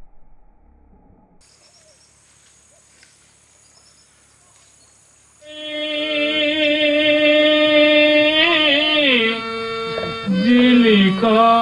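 Faint hiss for about five seconds, then a voice begins singing long held notes that bend slowly in pitch.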